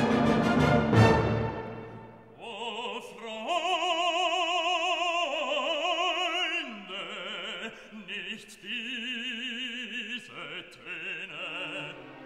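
Background music: a loud orchestral chord dies away over the first two seconds, then operatic singing with a strong vibrato, long held notes moving step by step over a quiet accompaniment.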